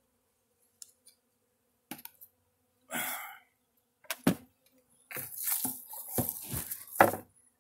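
Wooden hive frame knocked and scraped against a hive box to shake bees into it. There are a few light clicks, a sharp knock about four seconds in, then a quick run of scrapes and knocks ending in the loudest knock near the end. A faint steady hum runs underneath.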